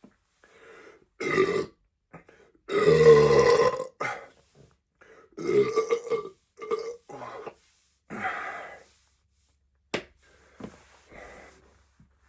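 A person belching deliberately over and over, the longest and loudest belch about three seconds in, with shorter ones after it. A sharp click comes near the end.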